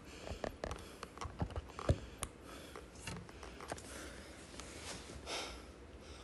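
Handling noise from a phone on a wooden table: scattered light taps, clicks and knocks at an irregular pace as it is adjusted, with a short breath about five seconds in.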